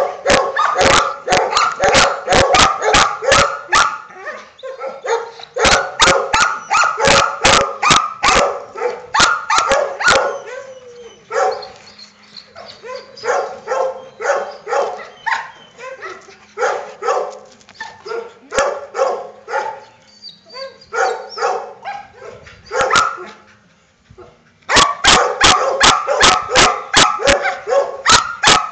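Dogs barking in fast runs of several barks a second, loud at first, then sparser and quieter for a long stretch in the middle, and loud again near the end.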